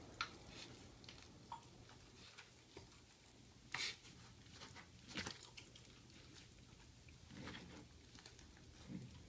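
Bichon Frise dog gnawing on a raw pork picnic roast: faint, scattered wet smacks and teeth clicks a second or two apart as he works at the meat and thick pork skin, the loudest about four and five seconds in.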